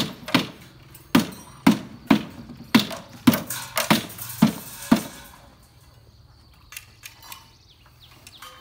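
A run of sharp knocks with a short ring, about two a second, stopping about five seconds in; a few faint clinks follow near the end.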